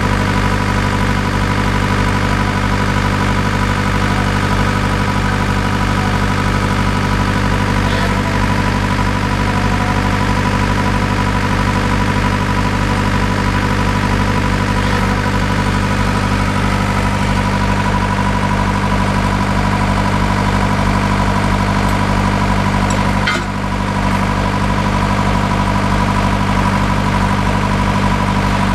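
Engine of a soil-investigation drilling rig running steadily, with a constant whine over its hum. The sound dips briefly with a click about 23 seconds in.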